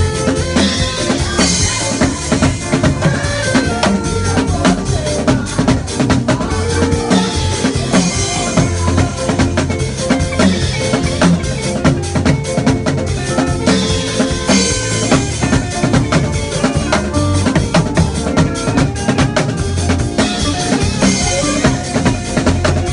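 Live worship band music driven by a drum kit played with sticks: a steady, busy beat of bass drum and snare over other instruments holding pitched notes, with a high hiss that swells about every six or seven seconds.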